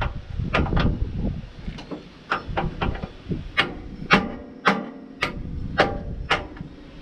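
Hammer striking steel on a tractor loader, a dozen or so sharp blows. In the second half they come evenly, about two a second, each leaving a short metallic ring.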